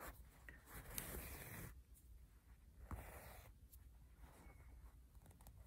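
Faint rasp of cotton embroidery thread drawn through wool fabric by a chenille needle, in two pulls: a longer one in the first second and a half, a shorter one about three seconds in, with a few small ticks.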